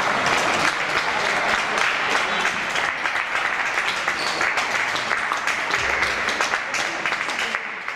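Crowd applauding: many hands clapping at once, easing off just before the end.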